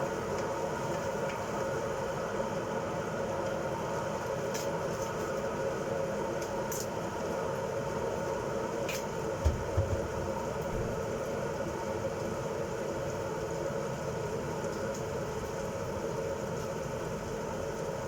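A steady machine-like hum, with a couple of low knocks about halfway through.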